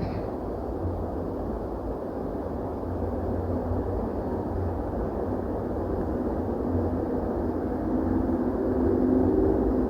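A steady, distant low rumble with faint droning tones, swelling a little near the end; its source is not identified and the uploader takes it for a mysterious sky noise.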